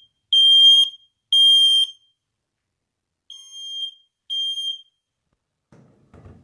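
First Alert smoke alarm sounding on a test-button press: loud, high-pitched single-tone beeps in its three-beep pattern. Two beeps, a pause of about a second and a half, then two quieter beeps before it stops. A faint rustle follows near the end.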